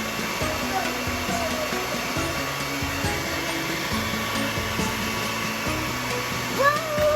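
Handheld hair dryer running steadily, blowing a continuous hiss of air.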